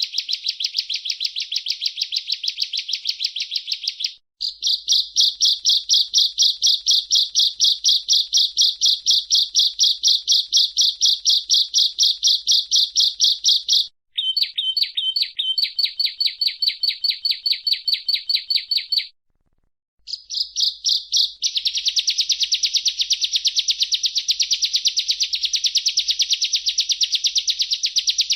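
Bar-winged prinia (ciblek) singing: a fast, continuous run of sharp, evenly repeated high chirps, broken by brief pauses about four, fourteen and nineteen seconds in.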